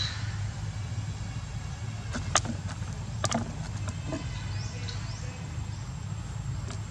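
A plastic water bottle crackling and clicking as a macaque handles it and works at its cap, the sharpest clicks about two to three and a half seconds in. Under it runs a steady low hum, and a few short rising chirps come in the middle.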